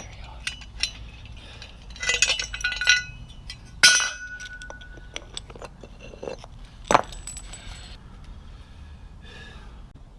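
A handful of sharp metallic clinks and knocks of hand tools on metal, bunched around two to three seconds in, with single strikes near four and seven seconds. The strike near four seconds leaves a brief ringing tone.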